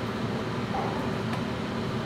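Steady room noise, a low hum with hiss, like a running fan or air-conditioning unit, with two faint ticks about a second in.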